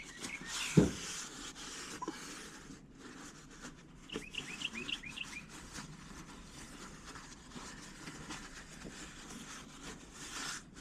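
A bird chirping, a quick run of short chirps about four seconds in, over faint outdoor background noise. A single knock sounds about a second in.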